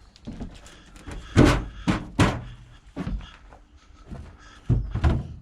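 A series of knocks and thuds as the vintage sidecar is handled and unloaded, the loudest about a second and a half in and two more near the end.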